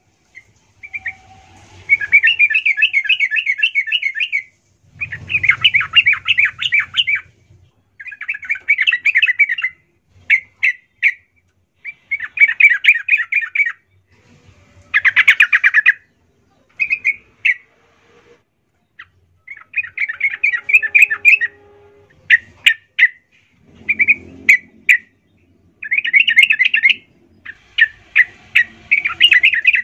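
Yellow-vented bulbul (trucukan) singing in full voice: fast chattering, trilled phrases of one to two seconds, repeated with short pauses and broken up by single sharp notes.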